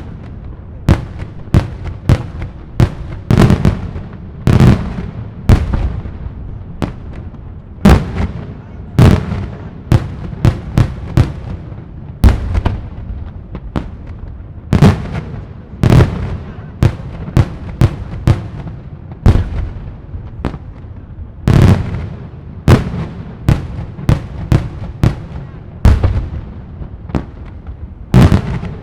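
Daylight fireworks: a continuous barrage of aerial shells bursting with loud, sharp bangs, about one to two a second, each followed by a brief rumbling echo.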